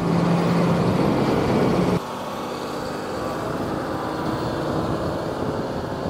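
John Deere 7250R tractor's six-cylinder diesel engine running steadily. About two seconds in the sound drops suddenly to a quieter, steady hum.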